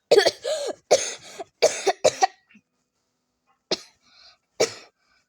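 A person coughing: four short coughs, a pause, then two more near the end.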